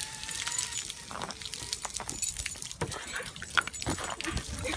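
A Boston terrier snapping at water running from a garden hose: irregular splashing and clicking, with the jingle of the metal tags on its collar.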